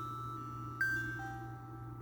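iPhone ringtone playing through the phone's speaker: a chime-like melody of single clear notes, with a louder high note struck about a second in and then a lower one, over a steady low hum.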